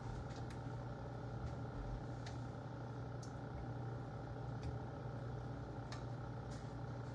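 A low, steady hum with a few faint, scattered clicks.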